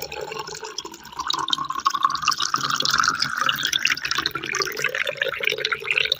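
Water being poured into a container: a steady splashing, gurgling stream whose pitch creeps slowly upward as it fills.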